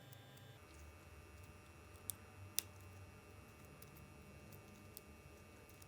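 Near silence: faint room tone, broken by two short sharp clicks about two and two and a half seconds in and a few fainter ticks later.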